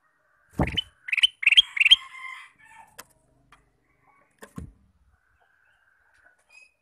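Male ruby-throated bulbul (kutilang emas) singing: a quick run of four short rising whistled notes, then a few softer calls. A dull thump comes just before the song and another about four and a half seconds in.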